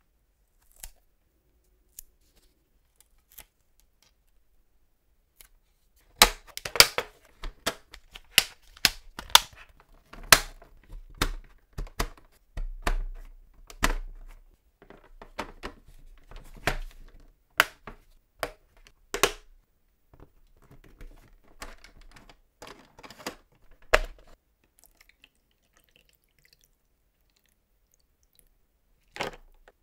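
Hard plastic toy playset parts clicking and knocking as they are handled and fitted together. A few light clicks at first, then about six seconds in a dense run of sharp clicks and knocks, thinning out toward the end.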